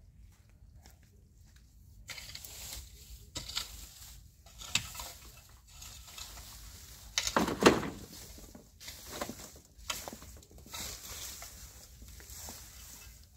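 A hand hoe chopping and scraping into dry soil and dead plant litter: a run of irregular strikes and rustling scrapes, the loudest about seven and a half seconds in.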